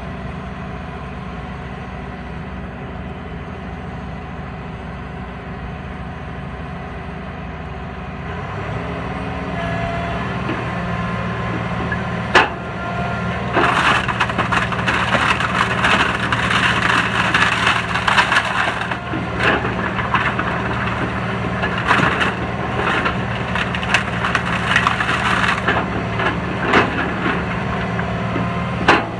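Excavator engine running steadily, its note stepping up about eight seconds in. A single sharp crack comes about twelve seconds in, then wooden pallets crack and splinter over and over as the excavator's grapple crushes them.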